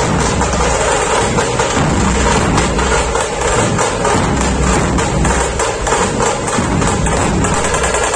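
A dhol-tasha pathak playing: many large dhol barrel drums beaten together with tasha snare drums in a loud, fast, dense rhythm with no break.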